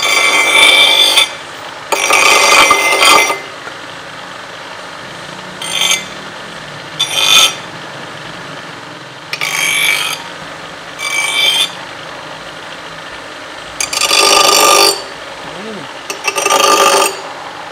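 Bench grinder running, with the steel blade of a leaf-spring meat cleaver pressed against its stone wheel in short passes: a loud grinding screech about eight times, each lasting up to about a second, with the grinder's steady hum between them.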